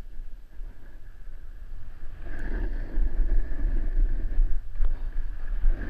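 Wind rumbling on a GoPro's microphone while a snowboard slides down a groomed slope, its base and edges scraping over packed snow. The scraping gets louder from about two seconds in.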